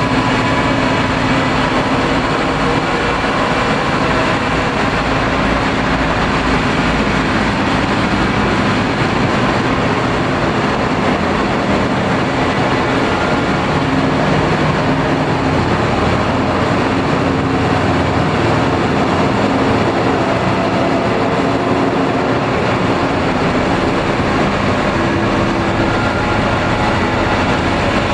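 Noise/dark ambient music: a loud, unbroken wall of rumbling noise with slowly shifting low drones and no beat.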